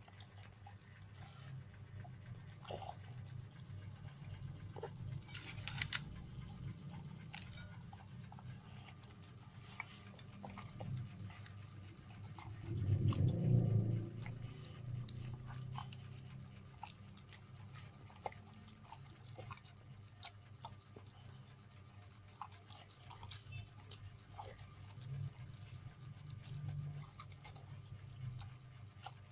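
A dog chewing and eating meat, with scattered wet clicks and crunches; about halfway through there is a louder low sound lasting about a second.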